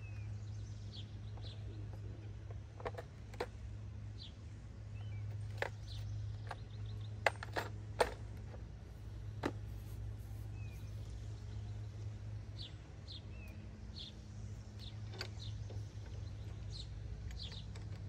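Scattered sharp metallic clinks of hitch parts being handled, the loudest two close together about halfway through. Birds chirp in the background over a steady low hum.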